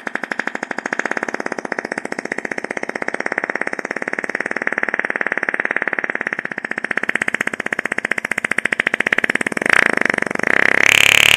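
One long, rapid fluttering fart sound effect that goes on without a break. It turns louder and shriller near the end, with a rising squeal in the last second.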